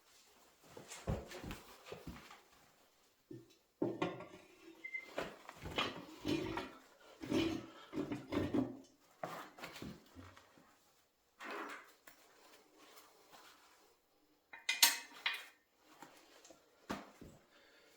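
Steel brackets, bolts and hand tools clinking and clanking in irregular bursts while brackets are bolted onto a motorcycle engine to mount it on an engine stand, with a pause of about two seconds near the end.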